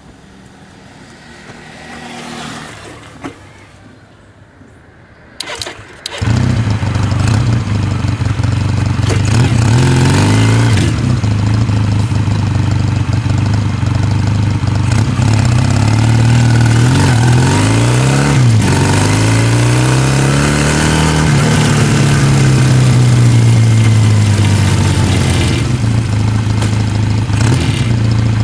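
A motor vehicle's engine starts about six seconds in, just after a couple of clicks, then runs loudly, its pitch rising and falling several times as it is revved before settling near the end.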